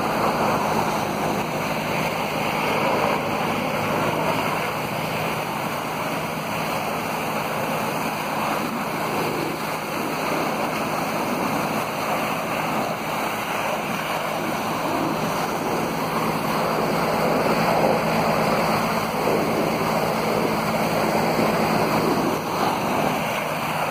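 Steady rush of a high-pressure water jet from a hose blasting into an earth bank and splashing, over a constant engine hum.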